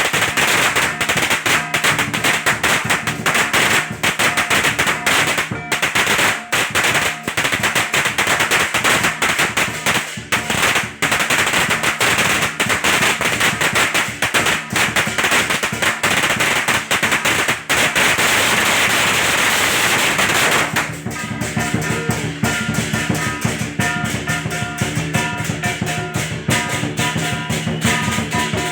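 A long string of firecrackers crackling in rapid, dense bangs for about twenty seconds. It then cuts to music with drums and percussion.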